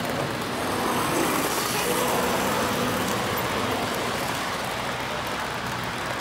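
Model trains rolling past close by on the layout's track, a steady rumble of wheels on rails that swells slightly about a second in.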